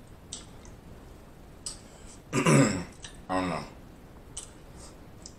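A man clears his throat twice in quick succession, about halfway through, the first time louder. There are a few faint clicks around it.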